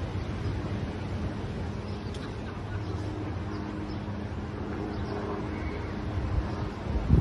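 Outdoor ambience: a steady low hum like distant traffic or machinery under a general wash of noise. Wind starts buffeting the microphone near the end.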